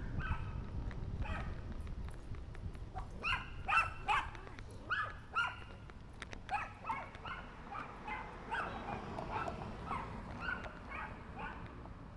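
A dog barking, a long irregular run of short barks, loudest a little under four seconds in.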